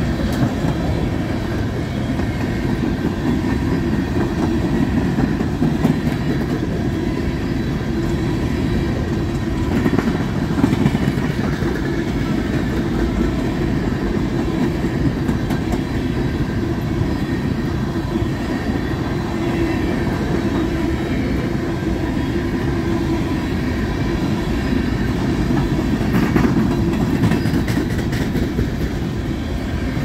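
Empty coal hopper cars rolling past: a steady, continuous low rumble of steel wheels on rail, with a few clicks from the wheel sets.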